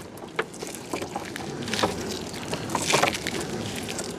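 Knocks and noisy strokes from work in a small river boat, over a steady background hiss. There are scattered sharp knocks, with louder strokes about a second and a half in and again about three seconds in.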